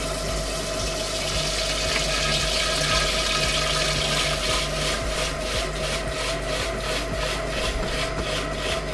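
Krups i Prep & Cook cooking machine running at speed 8, its whisk attachment stirring hot melted butter while milk is poured in through the lid opening. A steady motor whine runs under a hiss of liquid, and from about halfway through a rhythmic swish comes about three times a second.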